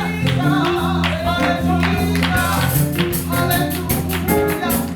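Live church praise-and-worship music: a band playing with a steady beat and sustained keyboard and bass notes, with singing.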